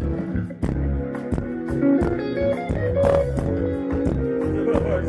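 Live band music during a sound check: guitar and bass guitar with drum hits on a steady beat.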